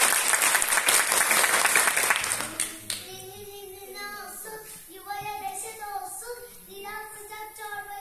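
Audience applause for about the first three seconds, then a young girl singing solo.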